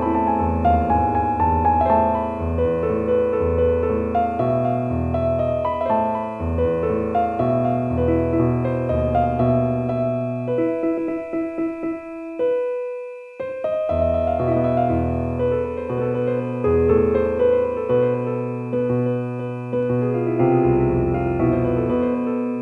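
Relaxing solo piano music with a bass line. About twelve seconds in, the playing thins to one held note that fades, then the piano picks up again.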